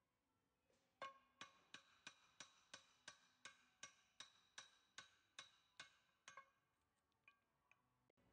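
Lump hammer striking a brass soft drift against a threaded retaining ring on a compressor drive shaft, tapping the ring round to unscrew it. About sixteen sharp, ringing metallic taps come at roughly three a second, starting about a second in, followed by a few faint clicks.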